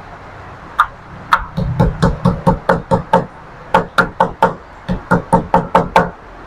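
A wooden pestle pounding chilies in a small ceramic bowl, crushing them for a chili-lime dipping sauce. It makes quick, sharp knocks, about four or five a second, which start about a second in and pause briefly halfway through.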